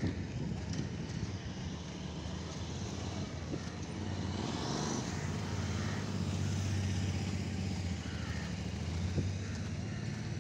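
A motor vehicle engine running with a steady low hum, and a louder swell of passing road noise about four to five seconds in.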